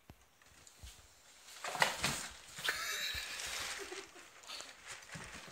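Jack Russell terrier scrabbling inside a cardboard box, claws scratching and scraping on the cardboard, loudest about two seconds in, with lighter scuffs and taps after.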